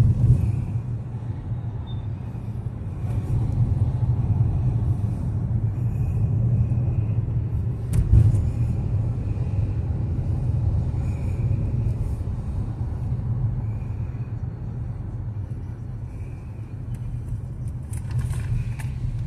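Car driving on town streets, its road and engine rumble heard from inside the cabin. A single thump about eight seconds in, as the tyres hit a bump in the road.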